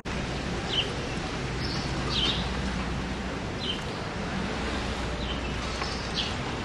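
Birds chirping, about six short high chirps spread across a few seconds, over a steady low hum of street traffic.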